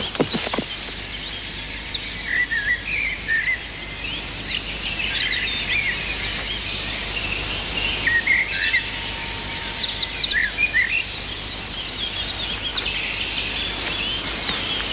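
Woodland birdsong: several birds chirping and whistling, with a fast trill at the start, again in the middle and near the end.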